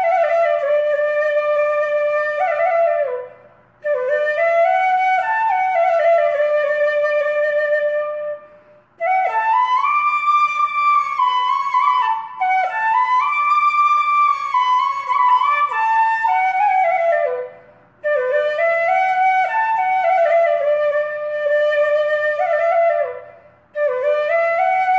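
Background music: a solo flute melody played in long phrases, with brief pauses between them.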